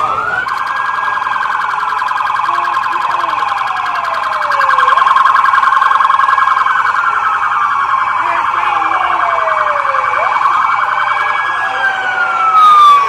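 Police vehicle sirens going off together. One wails, rising quickly and falling slowly in sweeps about every five seconds. Over it a second siren holds a rapid warbling tone that fades out about ten seconds in, and there is a loud burst of noise near the end.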